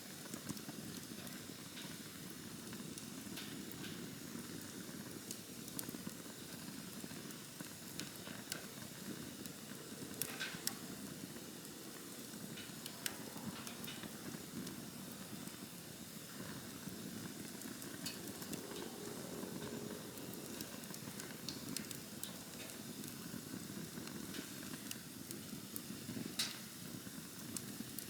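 Wood campfire burning: a steady low rustle of flames with scattered sharp crackles and pops, the loudest about ten, thirteen and twenty-six seconds in.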